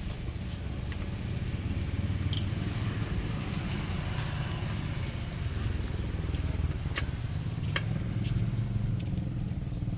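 A steady low engine-like rumble with three sharp clicks.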